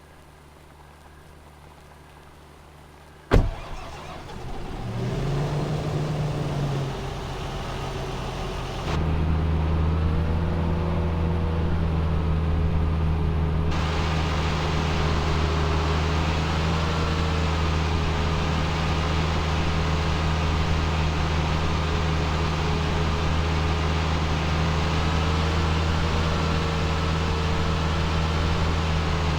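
An engine starts: a sharp knock about three seconds in, then the engine catches and runs, stepping up to a louder, steady running speed about nine seconds in.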